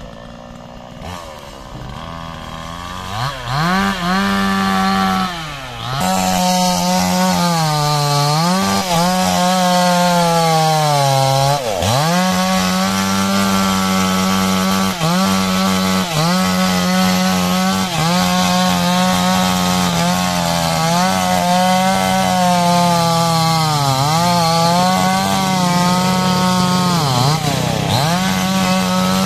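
Chainsaw cutting into a rubber tree trunk: it runs lower for the first few seconds, revs up, then holds at high revs with its pitch dipping sharply several times as the chain bites and the engine bogs under load, recovering each time.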